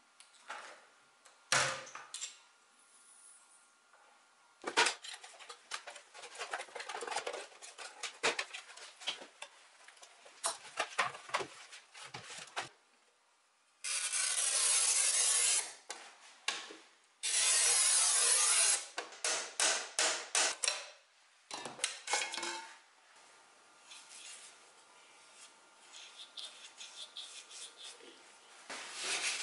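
Hand tools working on old cabinet parts: scattered clicks and knocks of metal hardware being worked loose, then two long bursts of hard scraping as a metal-tipped tool is drawn across a glass pane set in a wooden frame. More clicks and lighter scraping follow near the end.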